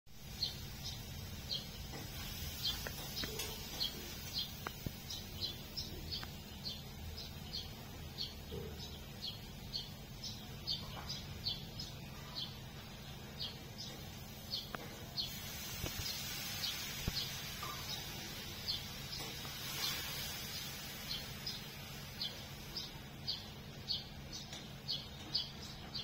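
A small bird repeating one short high chirp over and over, about two a second, over a steady low background rumble.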